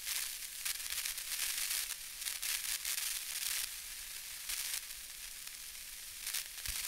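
Crackling, hissing noise, mostly high-pitched, that swells and dips in patches.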